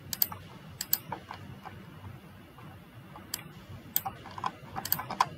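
Computer mouse clicking: a few sharp, scattered clicks, some in quick pairs.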